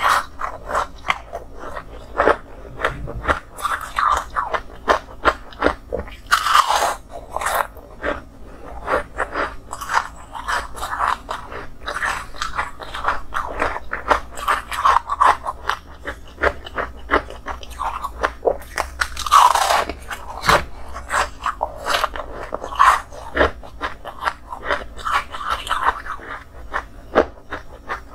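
Close-miked biting and chewing of moulded ice: rapid crunching cracks throughout, with louder bites about six seconds in and again near twenty seconds.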